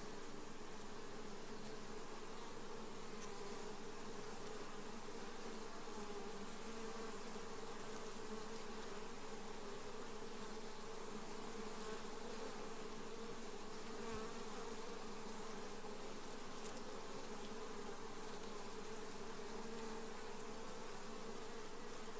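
Honey bees buzzing en masse, a steady dense hum of many bees.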